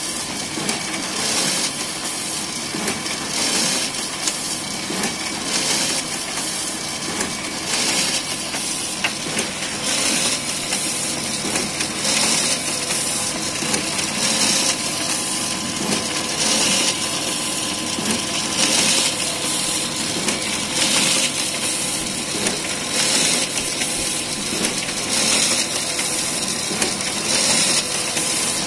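Large copier or production printer running, its paper-transport rollers and drive making a steady mechanical whir with a faint hum. A hissing swell repeats about every two seconds.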